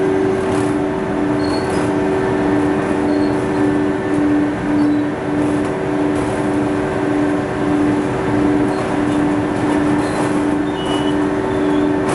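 Textile waste tearing machine running steadily: a constant mechanical hum and noise with a tone that throbs about twice a second.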